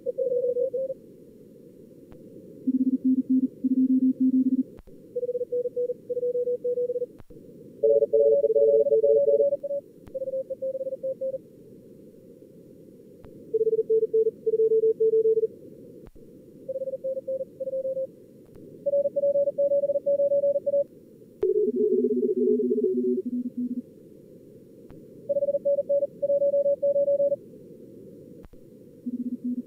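Computer-simulated Morse code (CW) contest exchanges from a logging program's practice mode: fast keyed tones at several different pitches taking turns, the operator's own sent signals and the simulated callers on two radios, at about 38 words per minute. Underneath runs a steady hiss of simulated band noise, filtered narrow so it sounds low and dull.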